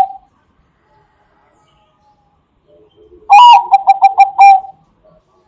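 Zebra dove (Bangkok-type perkutut) cooing loudly. The end of one phrase trails off at the very start, and a full phrase follows a little past halfway: a drawn first coo, then a quick run of about four short staccato coos.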